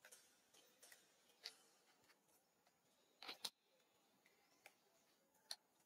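Near quiet with a few faint, scattered sharp clicks, the loudest a quick pair about three and a half seconds in.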